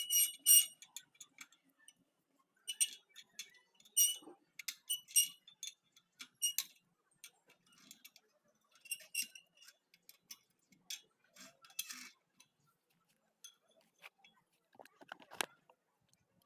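Irregular light metallic clinks and taps with a short high ring, as wire spokes of a motorcycle wheel are handled and worked with a tool, in clusters with pauses. A duller knock comes near the end.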